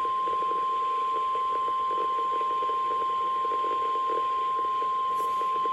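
NOAA Weather Radio warning alarm tone, the 1050 Hz signal, sounding as one steady, unbroken tone for the weekly test of the public warning system. A faint radio hiss lies under it.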